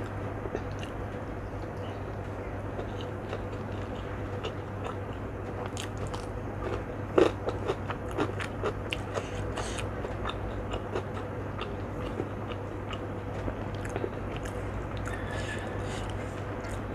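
A person chewing mouthfuls of rice with fried tempe and salted fish close to the microphone, with sharp crunches scattered through and loudest in a cluster about seven seconds in. A steady low hum sits underneath.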